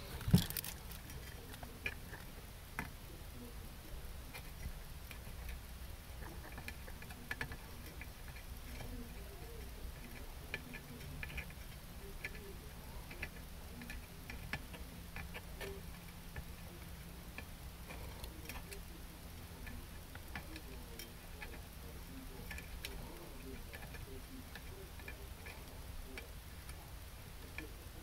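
Faint, irregular small clicks and taps as metal tweezers and a soldering iron tip touch a voltage regulator on a perfboard during hand soldering, with one sharper click about half a second in. A low steady hum runs underneath.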